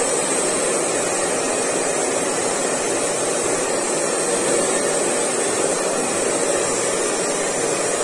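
Chaoba 2800 hand-held hair dryer running steadily, its fan blowing a constant rush of air onto hair.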